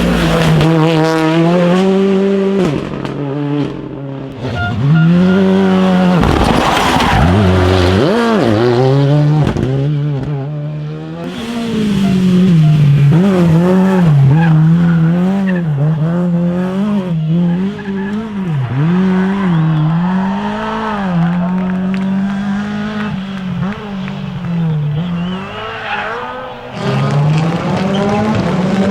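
Rally car engines revving hard, the pitch climbing and dropping every second or so as the cars shift and brake, in several short takes that change abruptly.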